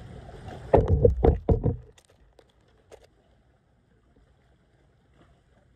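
Handling noise right at the phone microphone: about four loud knocks and rustles in quick succession within the first two seconds while a caught fish is held and gripped, then near silence with a couple of faint clicks as the hook is worked out of its mouth.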